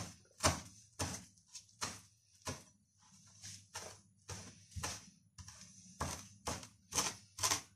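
Broad kitchen knife chopping fresh green herbs on a plastic cutting board: sharp knocks at about two a second, softer for a moment about three seconds in.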